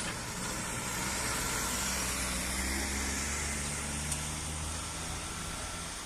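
A motor vehicle's engine running with a steady low hum that stops about five seconds in, over an even hiss.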